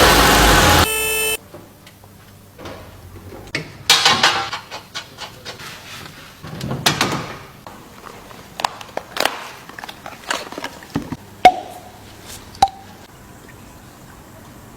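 Car engine running loudly for about a second, then cut off abruptly. After that come scattered light clicks, knocks and rustles of handling, and near the end two sharp clicks, each with a short ring.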